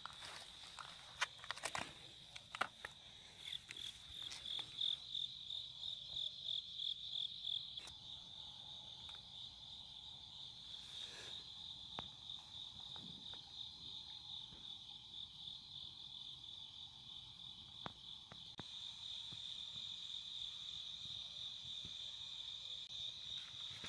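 Crickets chirping in a steady, pulsing chorus at night. A few sharp knocks and rustles come in the first few seconds.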